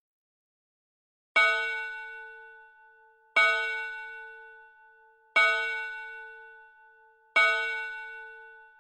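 Mantle clock striking four times, evenly about two seconds apart. Each stroke is a single ringing bell-like tone that fades slowly with a pulsing hum.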